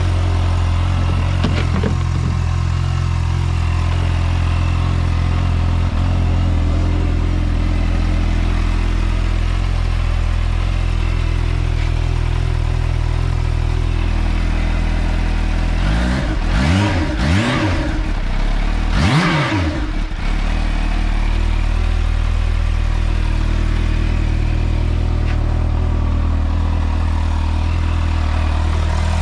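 Kawasaki Ninja H2's supercharged inline-four idling steadily, freshly refilled with oil. About halfway through, the throttle is blipped three times in quick succession, each rev rising and falling back to idle.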